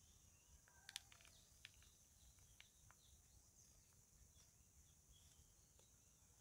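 Near silence: faint steady insect chirring, like crickets, with a few faint chirps and a soft tap about a second in.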